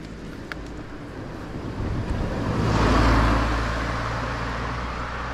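A car passing along the road. Its engine hum and tyre noise swell to a peak about three seconds in, then slowly fade.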